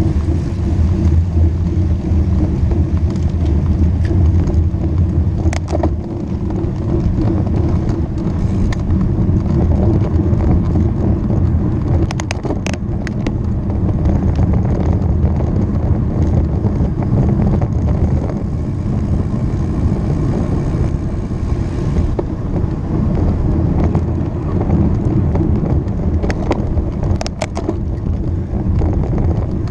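Road bicycle being ridden at speed: steady wind rumble on the microphone with tyre and road noise, broken by a few short sharp clicks, a cluster about twelve seconds in and more near the end.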